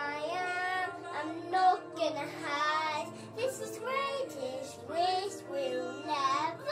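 A five-year-old boy singing, with a recorded backing track of music playing along underneath his voice.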